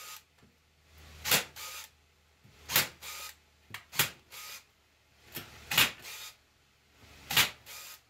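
Corded electric staple gun firing staples through wire hardware cloth into a wooden frame: five sharp snaps a second to a second and a half apart, each followed a moment later by a softer click.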